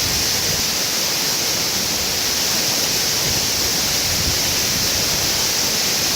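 Waterfall: a steady, loud rush of falling water, an even hiss with no breaks.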